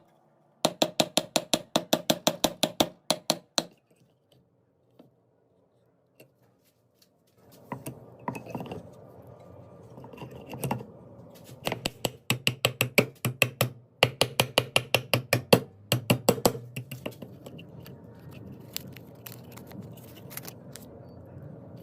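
Runs of rapid sharp clicks, about five a second, stopping for a few seconds of near silence and then resuming over a low steady hum, thinning out near the end.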